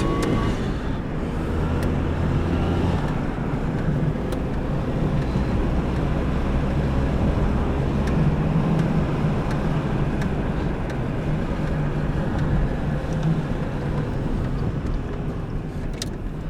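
Lada Kalina driving along, heard from inside the cabin with the windows open: the engine runs steadily under a constant rush of tyre and wind noise, and its note shifts a couple of times.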